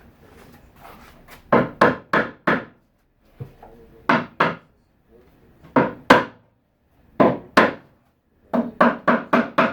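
Hammer blows on a wooden cabinet joint, driving it tight: about fifteen sharp knocks, each ringing briefly, in quick groups of two to four.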